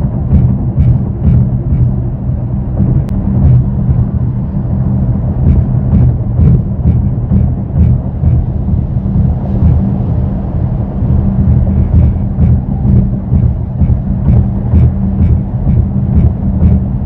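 Cabin road noise of a Mercedes-AMG GLE63 S SUV at highway speed: a steady low drone. Over it, a light ticking rattle repeats about twice a second. This is the vibration noise from the dash area that the owner has not been able to identify.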